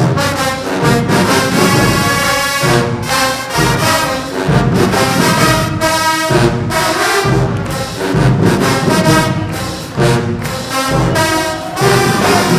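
Marching band playing a loud brass-led tune with a steady beat.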